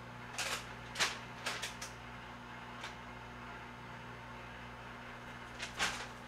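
A few short clicks and rustles of things being handled, a cluster in the first two seconds and two more near the end, over a steady low hum.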